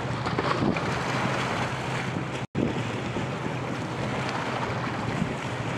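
Wind buffeting the microphone by a river, with water noise and a steady low hum from passing inland cargo barges. The sound cuts out completely for an instant about two and a half seconds in.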